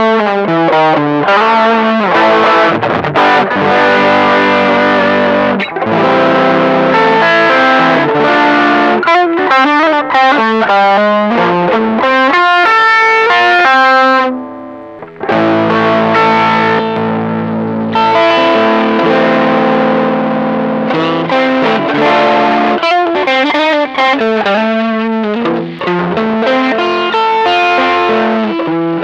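Electric guitar played through an engaged TC Electronic Dark Matter distortion pedal: distorted chords and riffs, with fast single-note runs and a brief break about halfway through.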